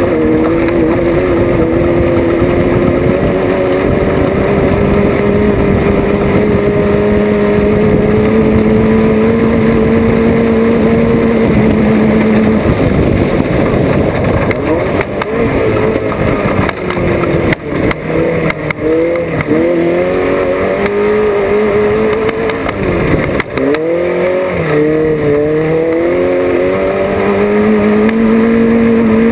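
Off-road race vehicle's engine running hard: held at steady high revs at first, then rising and falling repeatedly with the throttle, with a few sharp knocks in the middle stretch before settling back to steady revs near the end.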